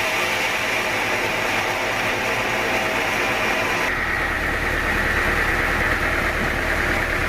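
Sawmill saw machinery running steadily with a hissing whine. About four seconds in the sound changes abruptly, a low hum coming in and the hiss easing.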